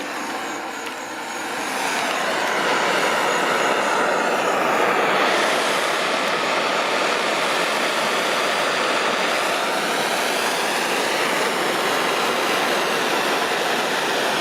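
Propane torch flame running with a steady hiss, growing louder about two seconds in, as it heats a copper pipe joint for soldering.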